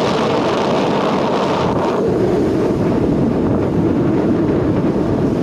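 Wind blowing on the microphone over the wash of sea waves: a loud, steady rumble and hiss that turns duller about two seconds in.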